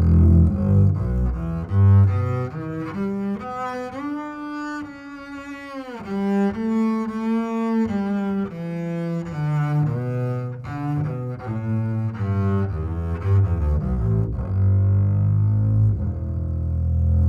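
Double bass played with the bow, a melodic line of short notes with a long held note about four seconds in that glides down in pitch at its end, followed by more quick notes.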